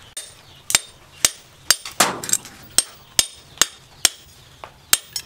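Knife blade made from a chainsaw part striking fence wire laid on a steel post: about a dozen sharp metallic strikes, roughly two a second, each with a brief ring.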